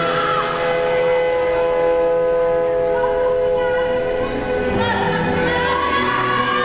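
Music with a long held note for the first four seconds or so, then a new phrase with a short rising line.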